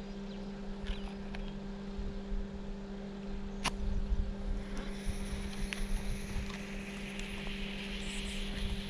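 Firecracker fuse lit with a sharp click about halfway through, then hissing steadily as it burns. Under it, wind rumble on the microphone and a steady low hum.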